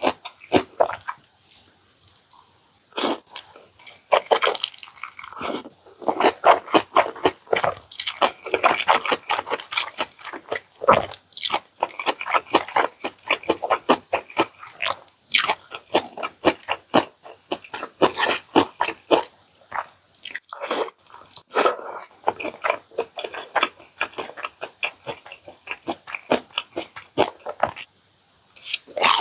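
Close-miked eating: a person biting and chewing food in quick, dense runs of wet chewing clicks and crunches.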